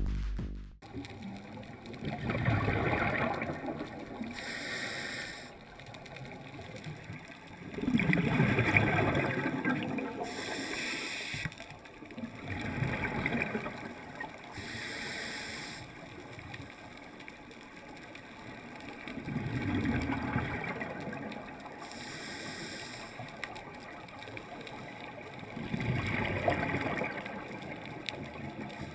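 Scuba diver breathing through a regulator underwater. Each breath ends in a low rumble of exhaled bubbles and is followed by a short high hiss as the diver inhales, repeating about every six seconds.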